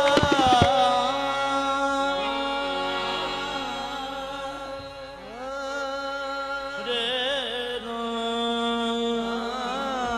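Qawwali music: the tabla stops about half a second in, leaving harmoniums holding sustained chords while a singer draws out long wordless notes that bend in pitch.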